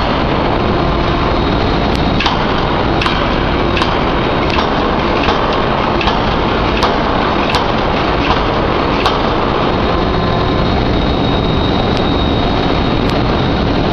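3-ton electro-hydraulic open die forging hammer striking a red-hot steel bar: sharp blows about once a second, with a pause of about three seconds near the end, over a loud steady din.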